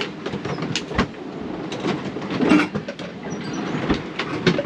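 Irregular knocking, clicking and creaking of a sailing yacht's fittings and gear rattling as the boat is thrown about in rough, choppy seas.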